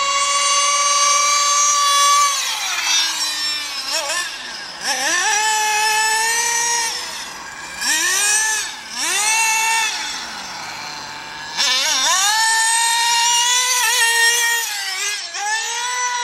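Carson Specter 1:8 nitro RC car's small glow-fuel engine running at high revs with a high-pitched whine, then revving up and down several times. Around ten seconds in it drops close to idle before running up high again.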